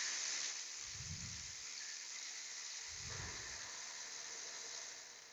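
A steady hiss that fades slowly and dies away near the end, with two soft low thumps about one and three seconds in.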